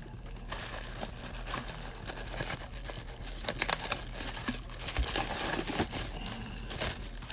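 Thin plastic bag crinkling and rustling as hands work a boxed device out of it. It starts about half a second in, and sharp crackles grow louder in the second half.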